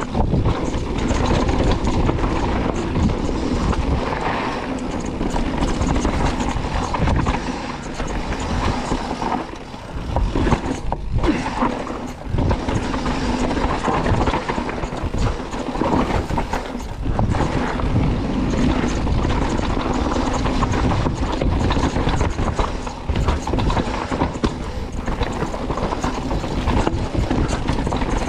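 Mountain bike riding down a bike-park dirt trail: continuous wind and rolling rumble with the bike rattling and knocking over bumps, briefly easing about ten seconds in.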